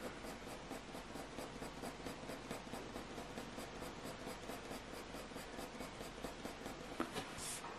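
Graphite pencil (a 4B Staedtler Mars Lumograph) scratching lightly on hot-press watercolour paper in quick, even short strokes, about four a second, softly blending in the shading. A slightly louder, longer stroke comes near the end.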